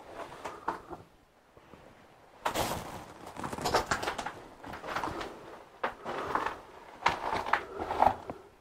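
Footsteps crunching on rubble and grit on a concrete bunker floor: irregular scraping steps that begin about two and a half seconds in and go on to the end, after a short quiet moment.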